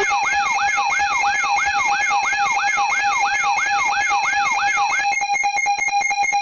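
Synthesized electronic alert siren: a fast yelp-style wail sweeping about three times a second over steady electronic tones. About five seconds in, it switches to a rapid pulsing tone.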